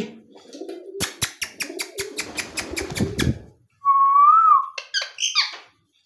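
Indian ringneck parakeets: a fast run of about ten sharp clicks in the first half, then one clear whistle that rises and falls, followed by a few short high chirps.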